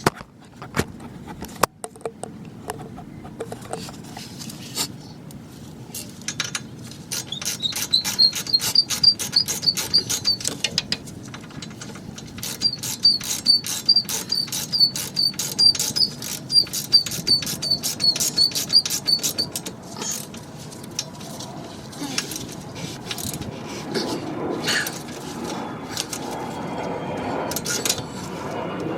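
Socket ratchet clicking in two long runs of quick, even strokes, about five clicks a second, each with a light metallic ping, as the brake caliper bolts are tightened. Scattered metal clanks and handling knocks follow near the end.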